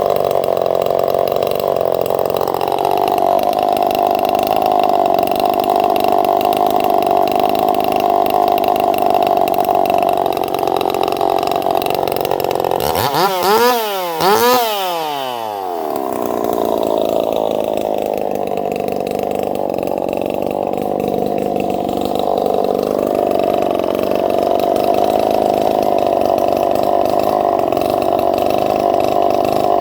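Small two-stroke engine, freshly rebuilt with a new piston and crankshaft, running steadily at a fast idle. Its pitch rises and falls sharply twice in quick succession about halfway through as the throttle is blipped, then it settles back to the same steady note.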